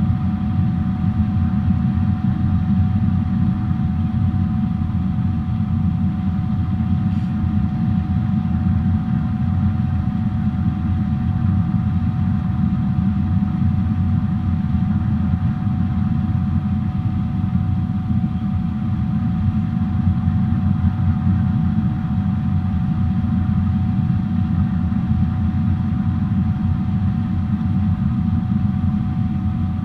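Boeing 777-300 airliner in flight, heard inside the passenger cabin: a steady low engine and airflow rumble with one constant whine above it.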